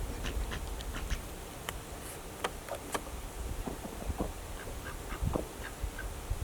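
Poultry calling in short, scattered calls, with light clicks and knocks in between.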